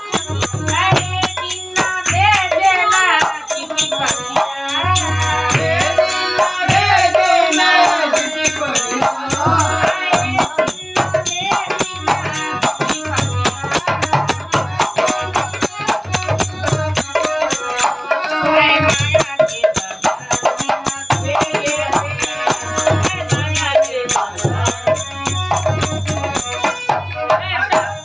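Lively Indian folk music: a singing voice over a harmonium and a fast, steady percussion beat with a pulsing low drum.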